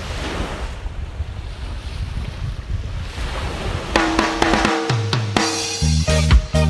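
Wind buffeting the microphone over the wash of surf. About four seconds in, background funk-style music with drums and bass comes in and grows louder.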